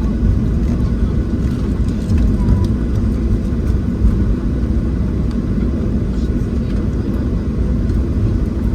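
Boeing 737-700 cabin noise on the ground before takeoff: its CFM56-7B engines at idle and a steady low rumble through the airframe, as the airliner taxis.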